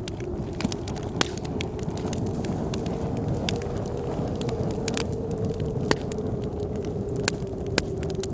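Wood fire crackling with many sharp pops, over a steady blizzard wind that carries a low, wavering whistle.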